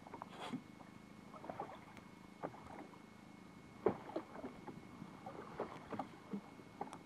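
Water lapping and slapping against the hull of a small boat at sea, in irregular small splashes and knocks, with one sharper slap about four seconds in.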